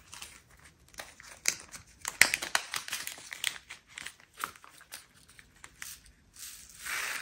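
Small plastic bags of leftover diamond painting drills crinkling as they are handled and packed into a storage box, with many short sharp clicks and a denser rustle near the end.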